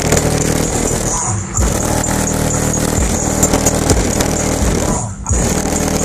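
Bass-heavy music played loud through the car's Kicker 15-inch subwoofers in a slot-ported enclosure, heard from outside on the roof. Several deep bass notes slide down in pitch, and the beat drops out briefly twice.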